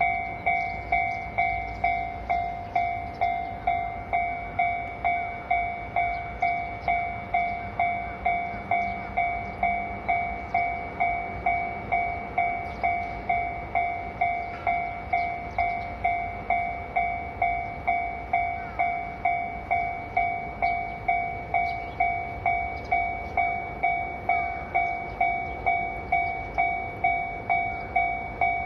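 Japanese railway level-crossing alarm ringing steadily, a little under two even strikes a second, each a two-pitched ding that fades quickly.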